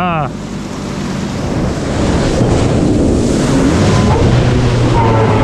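Wind rushing over the microphone and water spraying off the hull of a Taiga Orca Carbon electric jet ski as it speeds up and carves a hard turn. The rush builds over the first two seconds, then holds steady, with a low steady hum from the electric motor and jet pump joining near the end.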